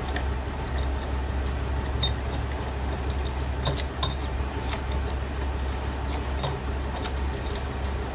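Sharp metal clinks of hand tools on a Yamaha RX two-stroke engine as its magneto is worked off with a puller rather than a hammer: several irregular clinks, the loudest pair about four seconds in, over a steady low hum.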